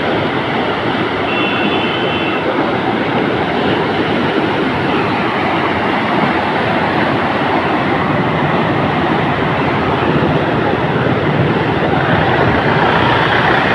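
Floodwater rushing and sloshing along the aisle inside a bus, in a steady loud wash mixed with the bus's running noise. A short high tone sounds about a second and a half in.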